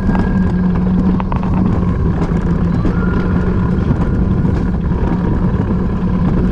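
Wiegand alpine coaster sled running fast along its stainless-steel tube rails: the wheels make a steady hum over a rumble, with scattered small rattles.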